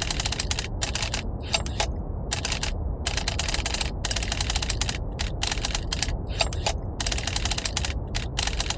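Rapid typewriter key strikes in runs of a second or so, separated by short pauses, over a steady low rumble of brown noise.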